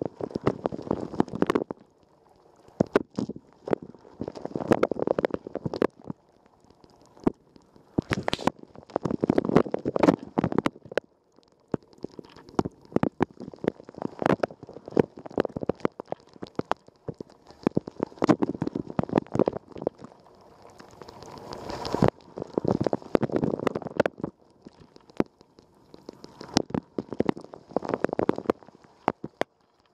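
Water spraying and splashing inside a Rosenlew dishwasher during a wash cycle, heard from inside the tub, with many sharp spatters of water striking. The spray swells and fades about every four to five seconds as the rotating spray arm sweeps past.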